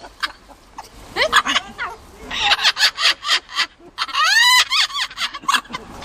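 A parrot giggling: quick runs of short, laugh-like cackles, with one loud rising-and-falling squawk about four seconds in.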